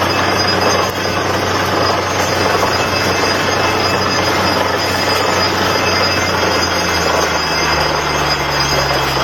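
Water borewell drilling rig running: a loud, steady mechanical noise over a low hum that shifts in pitch about seven seconds in.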